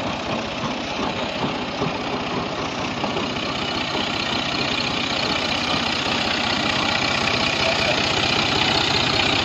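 New Holland Al-Ghazi 65 hp tractor's diesel engine running steadily while working a tractor-mounted rotavator, growing slightly louder near the end.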